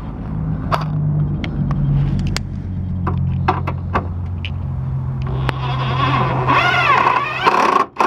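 DeWalt cordless impact driver running for about two seconds near the end, hammering a headlight-assembly retaining screw home, then stopping abruptly. Before that there are scattered clicks of the screw and driver being handled, over a steady low hum.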